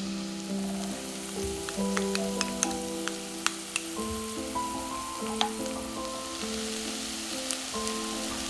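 Food sizzling in hot oil in a pan, with a few sharp clicks about two to three seconds in, over soft background music with slow held notes.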